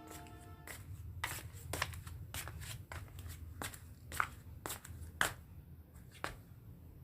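A series of light, sharp taps or clicks, about two a second, over a low steady hum. A few held music notes fade out just before the taps begin.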